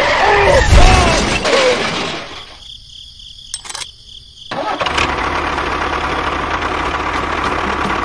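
Tractor engine running steadily with a low rumble, surging about a second in. It cuts out for about two seconds, with two sharp clicks in the gap, then runs steadily again.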